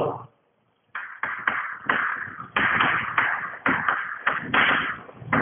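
Chalk writing on a chalkboard: a quick, irregular run of short scratching and tapping strokes, starting about a second in.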